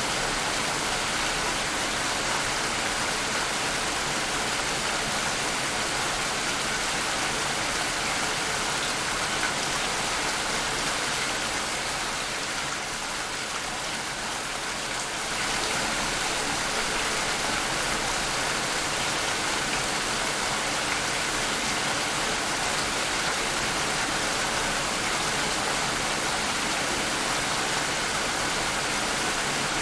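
Steady rain falling, an even hiss, which eases slightly for a few seconds about halfway through.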